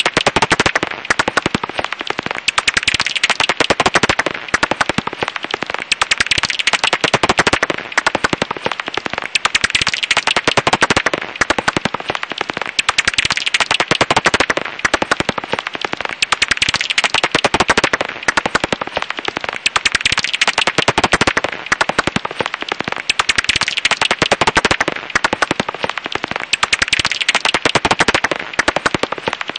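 Japanese house bat (Pipistrellus abramus) calls: a dense, rapid train of clicks that crackles continuously, swelling and dipping in loudness every three to four seconds.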